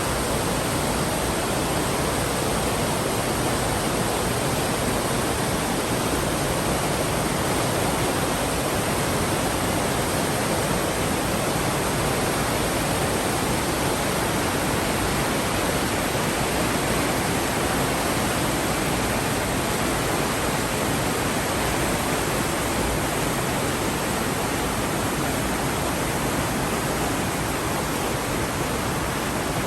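Steady, unbroken rushing noise at an even level, with no tones, clicks or changes.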